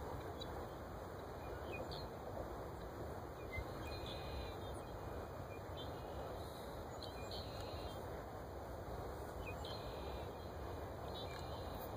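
Steady outdoor background noise with faint, short bird chirps now and then.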